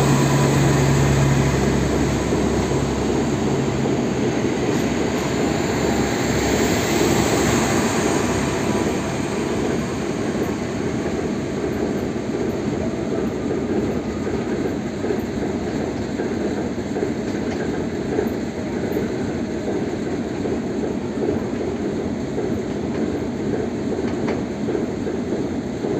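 Newag Impuls 36WEh electric multiple unit pulling away: a rising electric whine near the start over the rumble of wheels on the rails, growing a little quieter after about ten seconds as it moves off.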